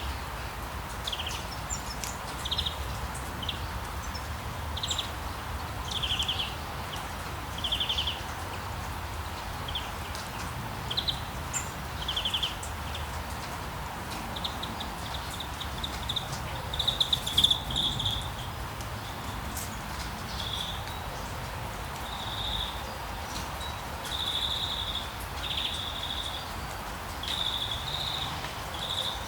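Outdoor nature ambience: small birds chirping over a steady low background hum of wind and distance. Short high trilled calls come about once a second at first, giving way to longer, buzzier phrases from about halfway through.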